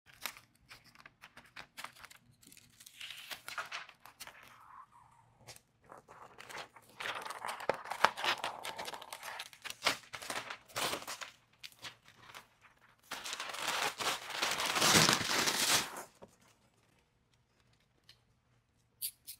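Clear plastic window tint film and its liner crinkling and crackling as they are handled and peeled on glass, in three bursts, the loudest a few seconds before the end.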